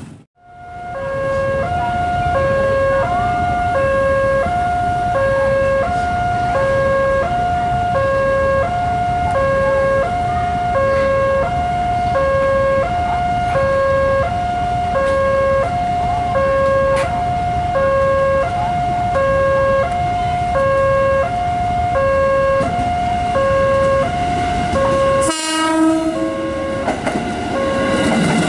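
Railway level-crossing warning alarm sounding a steady two-tone hi-lo signal, alternating about once a second, over the low rumble of an approaching electric commuter train. The alarm signals that a train is coming through the crossing.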